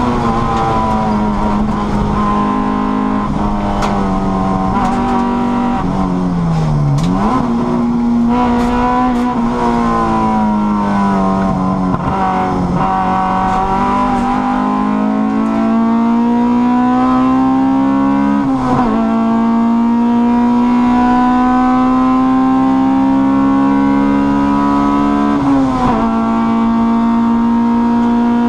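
Honda Cup race car's engine heard from inside the cockpit at high revs: the pitch sags and picks back up about six or seven seconds in, then climbs steadily under full throttle, broken by two sudden drops at gear changes, near 19 and 26 seconds in.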